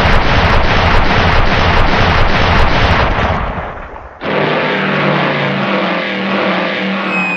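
Loud cartoon noise effect: a dense rumbling din pulsing about four times a second that fades out about three and a half seconds in, then a second loud, noisy rumble with a low steady hum starting suddenly about a second later.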